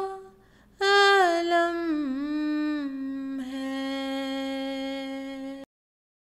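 A single voice singing the wordless closing phrase of an Urdu nazm. After a short pause it slides down in pitch through a slow melisma, then holds one long steady note that cuts off abruptly near the end.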